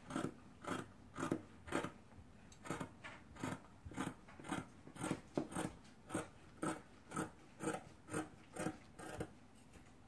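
Scissors snipping through the four-layer cotton seam of a sewn jeogori, outer fabric and lining together, trimming the seam allowance down to 1 cm. The snips come steadily at about two a second and stop shortly before the end.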